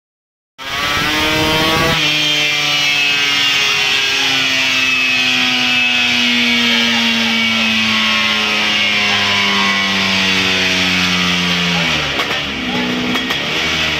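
Two-stroke racing Vespa scooter engine run hard on a dynamometer, held at high revs for about ten seconds. About twelve seconds in the throttle is shut and the revs drop and blip.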